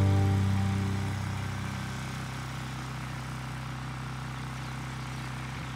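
Small engine of a walk-behind grass mower running steadily, a low even drone, while a music chord fades away in the first couple of seconds.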